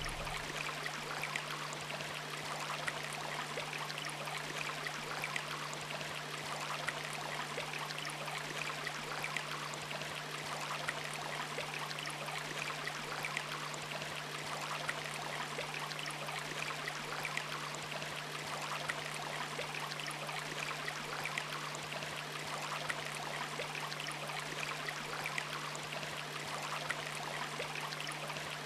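Shallow woodland stream running over stones, an even rush of water with fine splashes, with a steady low hum underneath.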